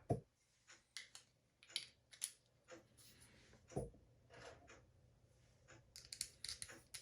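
Small metal and plastic parts of a bathroom exhaust fan motor being handled and fitted back together: scattered faint clicks and taps, a dull knock about four seconds in, and a quick run of clicks near the end.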